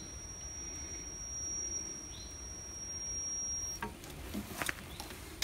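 A steady, high-pitched electronic warning tone from a conversion van's wheelchair lift, cutting off about four seconds in, followed by a few light mechanical clicks.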